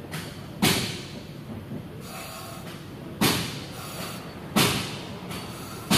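Brake pedal of a Toyota Land Cruiser being pumped, four sudden thumps, the last three about a second and a half apart, each trailing off briefly. The hydraulic pressure is pushing the piston out of the front brake caliper, which has been taken off because its seal is leaking.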